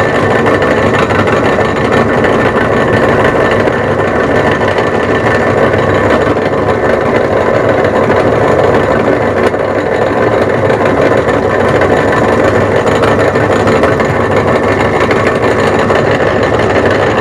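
Turnell & Odell metal lathe running steadily, drilling a hole through a tailstock quill.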